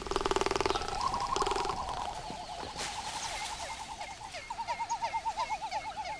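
Male frigatebirds' courtship display sounds: a fast rattling drumming at the start, then a long run of wavering, warbling calls that grow quicker and stronger near the end.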